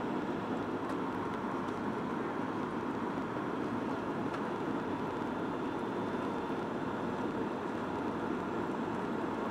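Steady cabin noise inside a Boeing 737-900 airliner descending on approach to land: an even, low rush of airflow and jet engine sound.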